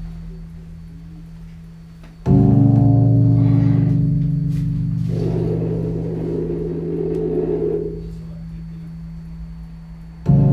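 Live experimental drone music: a steady low chord that cuts in abruptly much louder about two seconds in. A hazy layer of noise rises over it midway, then it drops back, and it cuts in loud again near the end.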